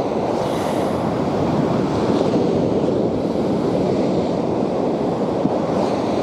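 Steady rush of sea surf breaking on the beach, mixed with wind blowing on the microphone.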